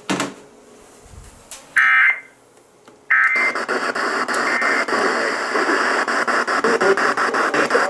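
WALK-FM radio audio during its Emergency Alert System test: a click, a short high tone burst about two seconds in, then from about three seconds a loud, steady, harsh static-like noise with rapid crackling.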